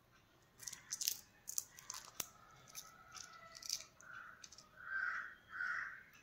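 A crow cawing three times in the second half, hoarse calls about half a second each. Before the calls come scattered sharp clicks and crackles.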